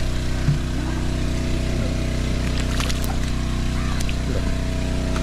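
Small petrol-engine water pump running steadily, pumping water out of a pit being drained for fish.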